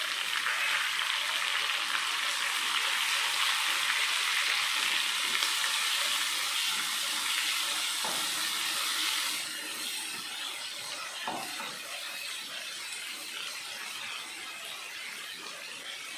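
Chopped onions and tomatoes sizzling in hot oil in a nonstick pot while a wooden spatula stirs them. After about nine seconds the sizzle drops noticeably lower and stays there.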